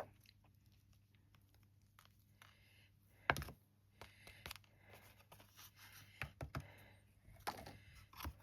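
Light rustles and small clicks of handling card and a pot of embossing powder, with one sharp knock about three seconds in and a few more taps near the end.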